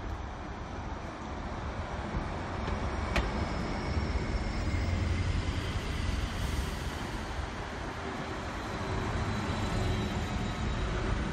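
City bus driving past on the street, its engine and tyre noise swelling to loudest around the middle and then easing off, over a steady traffic hum. A single sharp click about three seconds in.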